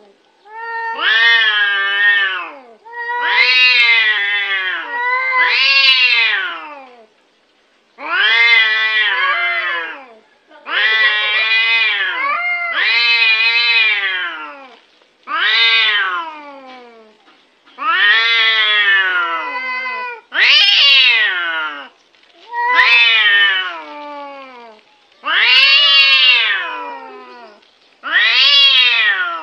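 A domestic cat meowing over and over: about a dozen long, drawn-out meows of one to two seconds each, falling in pitch at the end, with short pauses between them.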